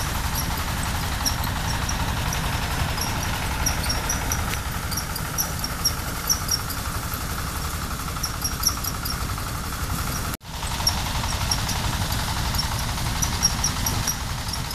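Engine of a rice threshing machine running steadily, a constant low rumble with a steady whine, while short high chirps sound over it now and then.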